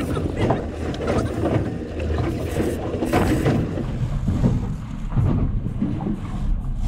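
Steady low rumble of a fishing boat underway at sea, engine and hull with wind and water noise, heard from inside the boat's cabin.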